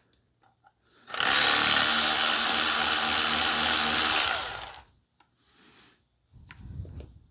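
Cordless power tool running for about three and a half seconds, then winding down, loosening a bolt on a brake caliper assembly. A few quieter knocks of parts being handled follow.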